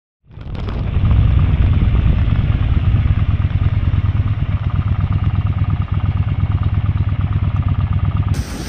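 Yamaha Bolt's 941 cc V-twin engine running as the motorcycle rides along, a steady low rumble that fades in just after the start.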